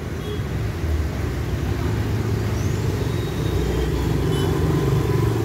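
Road traffic passing close by: cars and a motorcycle driving past, their engines making a steady rumble that grows a little louder about a second in.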